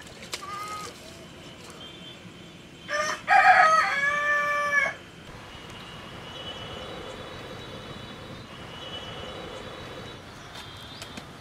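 A rooster crowing once, about three seconds in: a loud pitched call lasting about two seconds, ending on a long held note.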